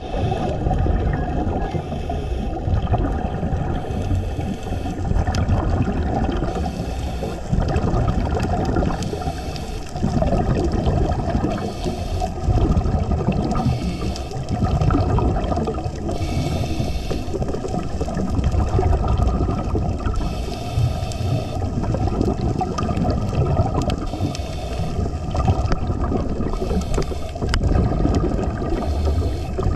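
Underwater noise picked up by a camera beneath the surface: a steady, muffled rush of water, broken every one to three seconds by short bursts of higher bubbling hiss.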